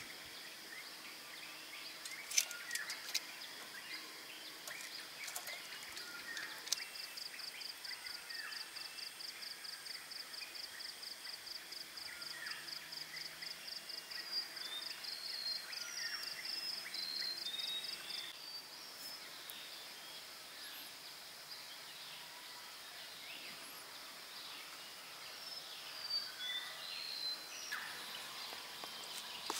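Birds chirping in a dawn chorus over a steady high insect hum. A rapid, evenly pulsing trill runs for about ten seconds in the middle, and a few sharp clicks sound in the first seconds.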